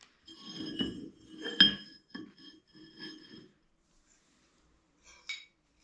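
Flat iron bar clinking and scraping against an anvil face as it is shifted and laid down, with a ringing metallic tone and two sharper knocks in the first two seconds; then it goes nearly quiet, with a light click near the end.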